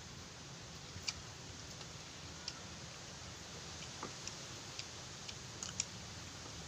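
Mouth sounds of someone eating water spinach close to the microphone: sparse small clicks of chewing and lip smacks, eight or so spread over several seconds, over a faint steady hiss.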